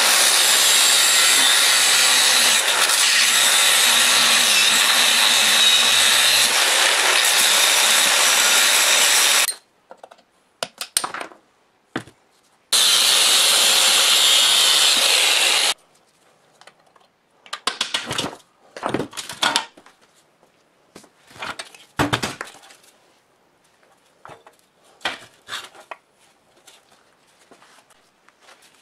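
Angle grinder grinding into rusted steel in two runs, a long one of about nine seconds and a shorter one of about three, each stopping abruptly. After that come scattered short knocks and metal clatters.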